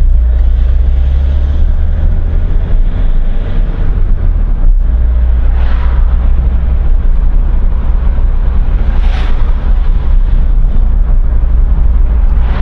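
A car being driven, heard from inside the cabin: a loud, steady low rumble of engine and road noise. There are brief swells of hiss about 6 and 9 seconds in.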